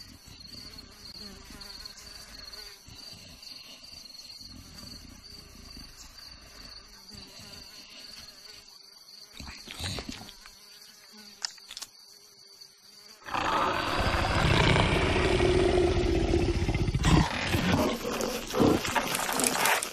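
Faint savanna ambience with a steady high insect chirr, then, about 13 seconds in, a leopard breaks into a loud, rough growl that lasts to the end.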